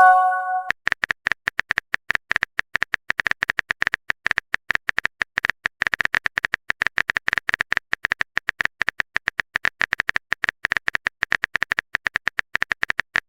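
A short message-notification chime, then rapid, irregular clicking of a phone-keyboard typing sound effect that runs on as a message is typed out.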